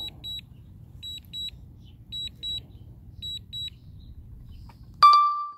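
A DJI Air 2S drone's remote controller beeps in quick pairs, about one pair a second: its return-to-home alert. A low rumble of background noise runs underneath. About five seconds in, a single loud ringing chime strikes and rings on, then cuts off abruptly.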